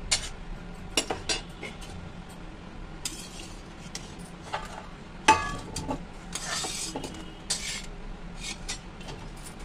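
Metal slotted spatula scraping and clinking against a metal kadhai while scooping boiled bitter gourd pieces out of the water, in a series of short scrapes and clinks, the loudest about five seconds in.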